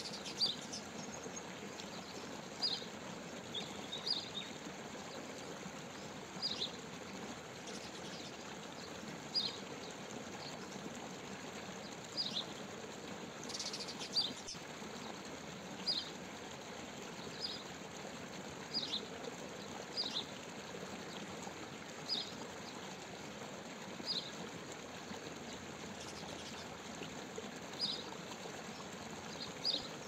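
Pied bushchat giving a short, high, slightly falling call note over and over, about once every one and a half to two seconds, over a steady background rush.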